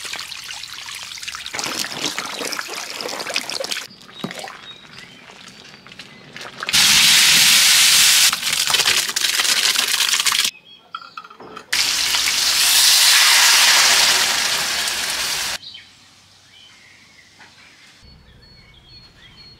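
Two loud stretches of steady rushing water, such as a running tap or a pour, cut together with quieter outdoor sound. A few faint bird chirps come near the end.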